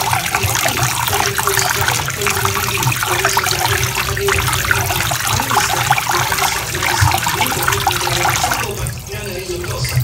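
Rice being washed by hand in a pot of water: continuous swishing and splashing as the grains are stirred and rubbed.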